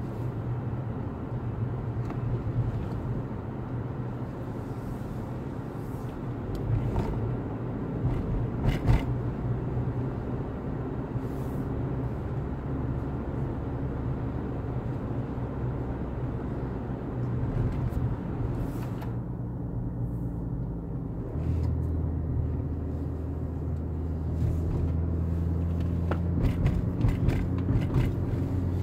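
Car engine and tyre noise heard from inside the cabin while driving, a steady low hum. About two-thirds of the way through, the engine note drops lower and grows stronger.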